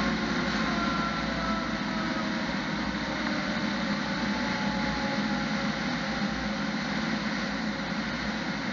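Fire engine driving along a road: steady engine and road noise heard from inside the cab.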